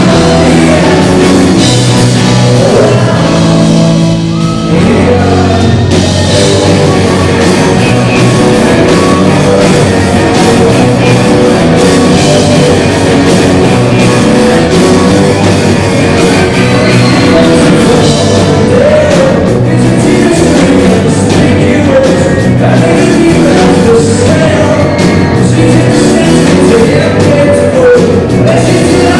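Rock band playing live, with drums, electric guitars and bass under a sung lead vocal. The sound thins briefly about four seconds in, then the full band comes back in.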